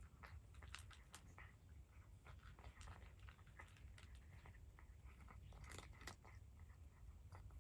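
A cat chewing food: faint, irregular crunches and small clicks, several to the second.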